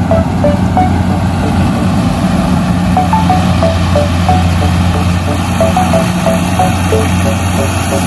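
Corn combine harvester running steadily as it cuts through standing corn, a low engine hum under a broad mechanical noise. Background music of short melodic notes plays over it.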